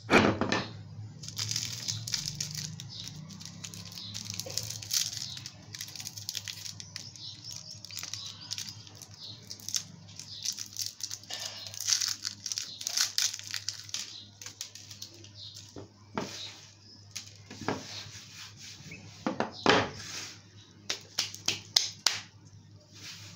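A hammer hits a wrapped hard candy on a tabletop once at the start. The plastic candy wrapper then crinkles and tears as it is worked open by hand. Several sharper knocks and crackles come near the end.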